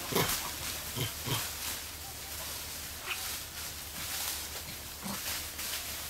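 Dry leaf litter rustling and crackling as a Formosan rock macaque walks and picks through it, with a few brief soft thumps near the start and about a second in.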